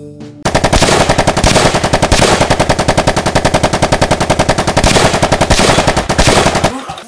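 Sustained machine-gun fire, a rapid unbroken string of shots, as a sound effect for a mock shootout with toy guns. It begins about half a second in and stops abruptly near the end.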